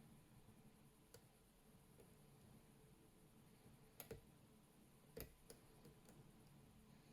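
Faint, scattered clicks of a lock pick and tension wrench working the pins of a Mako 427 pin-tumbler padlock during single-pin picking. One click comes about a second in, a close pair about four seconds in, and a few more between five and six seconds.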